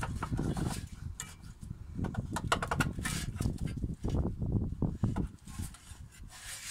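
Scattered clicks and rattles as a gloved hand works the plastic oxygen sensor wiring connector loose, over an uneven low rumbling noise. The clicks come thickest about two and a half to three and a half seconds in.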